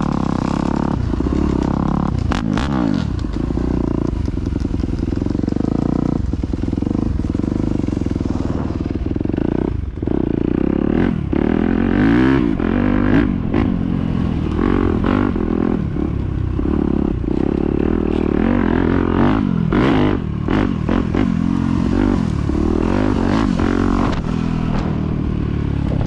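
Yamaha YZ250F four-stroke single-cylinder dirt bike engine being ridden hard. It revs up and down over and over, and the throttle is briefly shut every few seconds.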